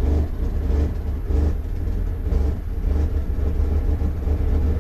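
Pickup truck engine idling unevenly from inside the cab, its rumble swelling and fading in a steady pulse a little faster than once a second. This is an idle surge with the RPM fluctuating, which the mechanic suspects comes from a faulty MAP sensor (code P0107, MAP sensor low voltage).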